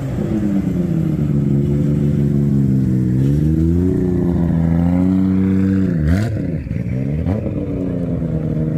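Nissan Skyline R34's straight-six engine pulling away at low speed; its pitch sags and rises, then dips sharply and climbs back twice near the end as the throttle is blipped or a gear changes.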